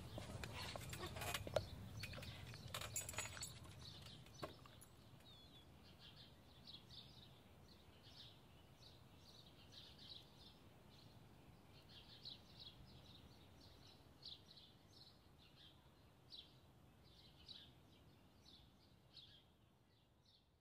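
Faint small birds chirping over and over in short high calls, with a low outdoor rumble and a few sharp clicks and knocks in the first four seconds. The sound fades out near the end.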